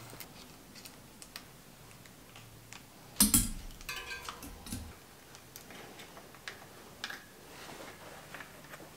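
Small clicks and taps of a bicycle brake cable and handlebar brake lever being handled as the cable is threaded into the lever. About three seconds in comes a louder clattering rattle that rings briefly.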